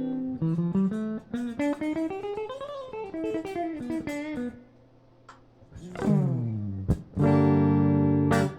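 Ibanez AZ24S electric guitar played clean: a quick run of single notes climbing and then coming back down, a short pause, then a note sliding down in pitch and a loud chord held near the end.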